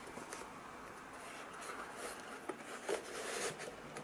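Faint rubbing and handling noise as HiFiMAN Susvara headphones are rotated up and pulled out of their fabric-covered foam case insert, with a couple of light clicks past the middle.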